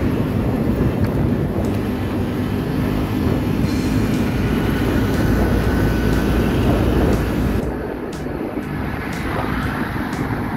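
Yamaha Mio scooter's single-cylinder engine running steadily while riding at speed, mixed with wind and road noise. The loudness dips briefly about eight seconds in.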